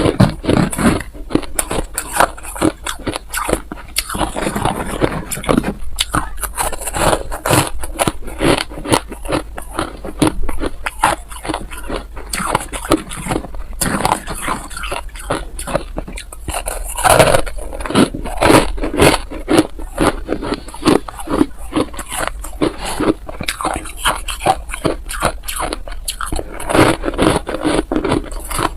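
Ice being bitten and chewed close to the microphone: a dense, continuous run of crisp crunches and cracks.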